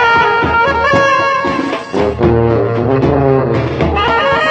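Indian wedding brass band playing, a sousaphone holding long low bass notes under a higher brass melody, with drums beating.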